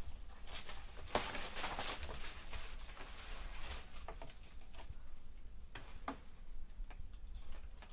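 Irregular rustling and light cracking of breadfruit leaves and branches as a climber moves through the tree, with a denser burst of rustling about a second in.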